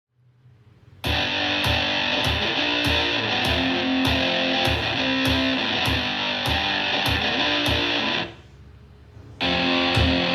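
Rock music with distorted electric guitar over a steady drum beat, played back through a portable Bluetooth speaker in a sound test. It starts about a second in after near silence, drops out for about a second near the end, then comes back in.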